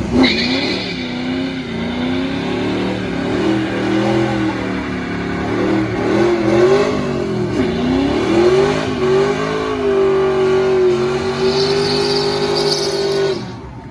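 A car engine held at high revs during a burnout, its pitch swinging up and down as the driven tyres spin and smoke. There is a high tyre squeal at the start and again near the end, and the revs cut off suddenly just before the end.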